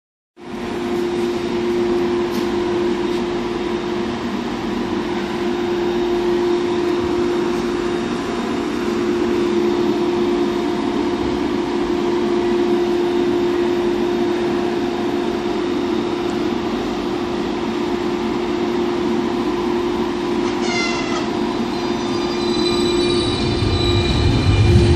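Vienna U-Bahn U6 Type T/T1 light-rail train at a station, its electrical equipment giving a steady hum with one clear tone. Near the end come a short run of high squealing tones and a rising low rumble.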